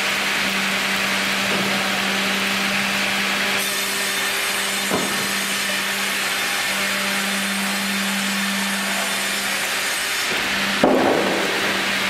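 FIMAKSAN vertical band sawmill running, with a steady motor hum under the noise of the saw cutting wood. A loud wooden knock comes near the end.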